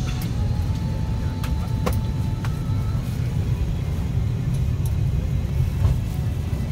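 Steady low rumble of airliner cabin noise, with a few faint clicks over it.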